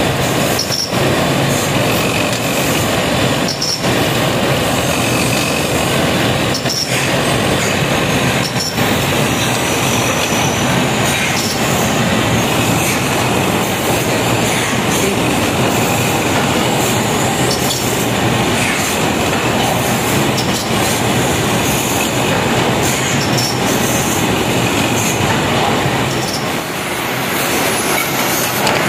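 Row of small belt-driven bench lathes running steadily as brass plug pins are turned, with metal-on-metal scraping and brief high squeals now and then.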